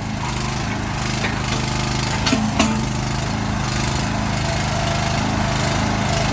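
Mini excavator's engine running steadily, with a few short knocks about a second in and again around two and a half seconds in.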